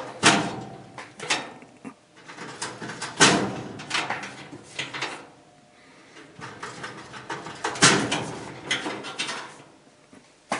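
Wire connectors being pulled off the terminals of an LG electric dryer's heating element: a string of sharp metallic clicks and scrapes, loudest about three seconds in and again about eight seconds in.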